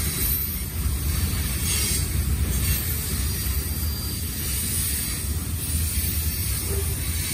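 Freight train of covered hopper cars rolling steadily past, a continuous low rumble of wheels on rail.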